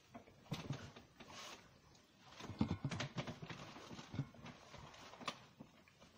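Close, irregular clicking and rustling: a sandwich being chewed near the microphone, mixed with the hoodie brushing against the device as it is handled. The sounds come in two clusters with a sharp single click near the end.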